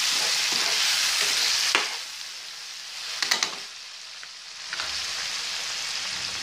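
Chopped tomatoes and onion masala frying in oil in a non-stick pan, giving a steady sizzle, with a spatula scraping and clicking against the pan in the first two seconds. The sizzle drops away about two seconds in, a brief clatter follows about three seconds in, and the sizzle returns near five seconds.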